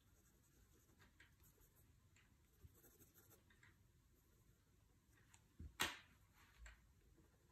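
Faint scratching of a graphite pencil sketching on sketchbook paper, with one sharp tap a little under six seconds in as the pencils are handled on the wooden table.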